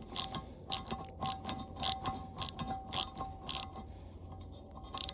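Socket wrench ratchet clicking as it is cranked back and forth to run a nut off a bolt, with a sharp burst of clicks about twice a second that fades to fainter clicking near the end.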